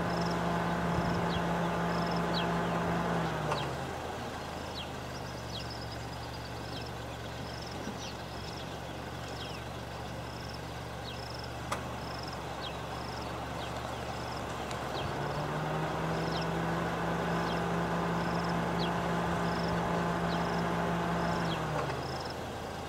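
A vehicle engine running close by, its pitch dropping about three seconds in, rising again past the middle and falling near the end. A faint high chirp repeats a little faster than once a second behind it.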